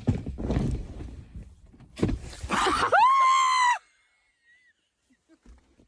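A person screams once, a short high-pitched held scream about three seconds in, after a brief noisy commotion.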